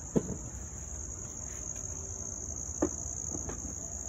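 A steady, high-pitched insect trill runs throughout. Two sharp clicks cut through it, one just after the start and one a little under three seconds in.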